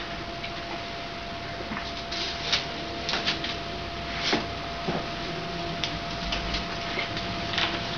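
Light, scattered clicks and taps from a microscope being handled, about a dozen, irregularly spaced. Under them runs a steady faint hum with a thin constant tone.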